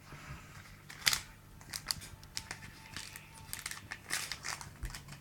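Foil trading-card booster pack crinkling as it is opened and handled, in a string of short crackly rustles.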